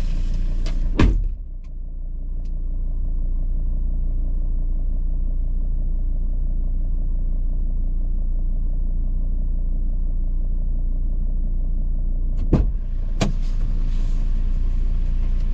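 Steady low rumble of a 4x4 driving, heard from inside the car: engine and tyre noise on a country lane. A sharp knock about a second in and two more a few seconds before the end.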